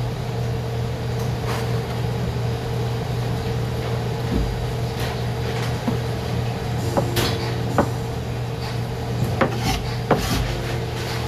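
Chef's knife chopping mushrooms on a plastic cutting board: scattered sharp knocks of the blade on the board, the clearest in the second half, over a steady hum.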